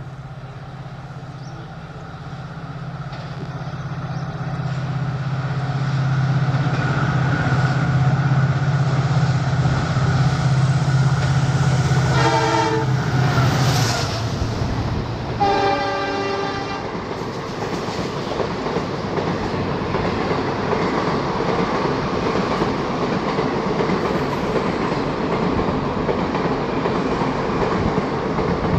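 Indian Railways WDP-4 diesel locomotive (EMD two-stroke) approaching at speed, its engine drone growing louder, then sounding its horn twice as it passes, the second blast a little lower in pitch. After the horn the express coaches roll past with a continuous rumble and clatter of wheels on the rails.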